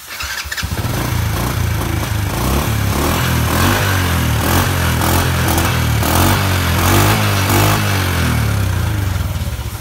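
Honda Wave S 110's small single-cylinder four-stroke engine starting about half a second in and running, its speed rising and falling slightly. It is an original engine whose top end has never been opened, running very quietly.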